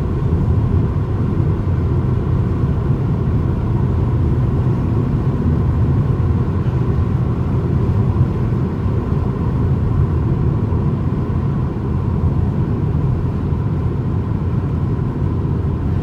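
Steady low rumble of a car driving at expressway speed, heard from inside the cabin: tyre and road noise mixed with the engine.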